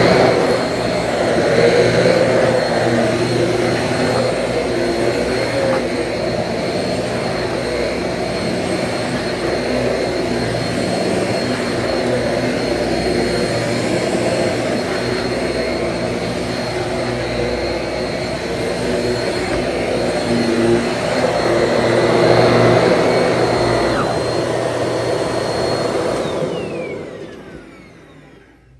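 Bissell PowerClean Slim Pet corded stick vacuum running over carpet: a steady motor hum with a high whine. About 26 seconds in it is switched off and winds down, its whine falling in pitch as it fades out.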